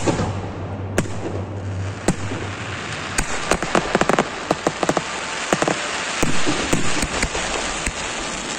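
Fireworks display: shell bursts about once a second, then from about three seconds in a dense crackle with many quick, sharp pops.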